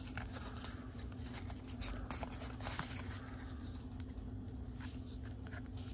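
Pokémon trading cards being handled and moved around in the hands: faint rustling with scattered light ticks of card edges sliding against each other, over a steady low hum.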